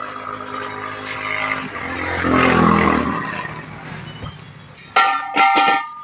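A motor vehicle's engine passes close by, swelling to its loudest midway and then fading. Near the end come two or three sharp metallic clangs that ring on, as the steel wheel disc comes out of the tractor-trolley tyre onto the concrete.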